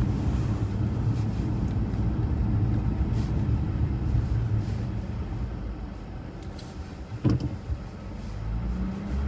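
Car driving slowly, engine and road rumble heard from inside the cabin, easing off around the middle and building again near the end. A single knock about seven seconds in.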